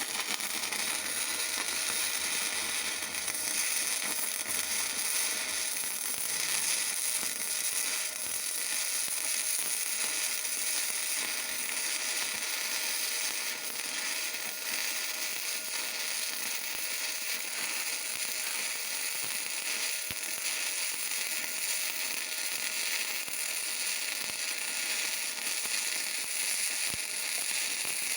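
Electric welding arc from a GeHOCK MMA/MIG 120 welder, struck suddenly at the start and then burning with a steady, even crackle and sizzle, a faint steady tone running under it.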